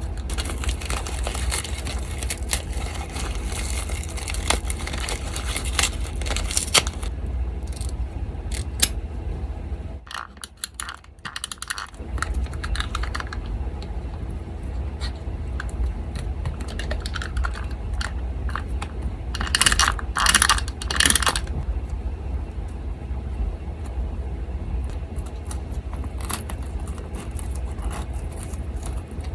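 Paper being handled at close range: irregular rustles, crinkles and soft taps, with a louder crisp crinkling about two-thirds of the way through. Under it an electric fan runs with a steady low hum, which drops out briefly about a third of the way in.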